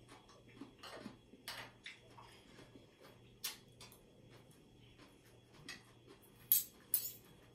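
Fork and spoon clinking and scraping on a plate while eating: scattered light clicks, with two sharper clinks close together near the end.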